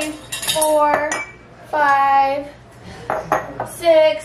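Empty glass canning jars clinking against each other and the tile counter as they are handled, with a woman's voice in between.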